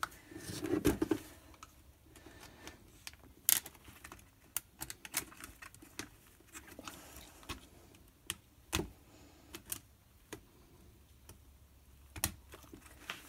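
Irregular small clicks and taps of a screwdriver and steel wire against the plastic cells of a Flow Hive Flow Frame while a wire strand caught on the plastic is worked free; the sharpest click comes about three and a half seconds in.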